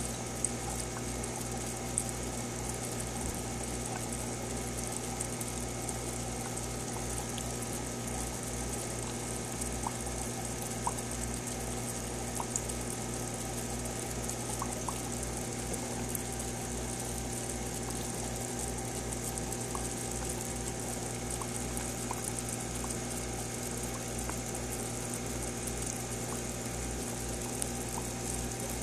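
Aquarium pump running with a steady hum, and water bubbling with faint crackling and a few small clicks.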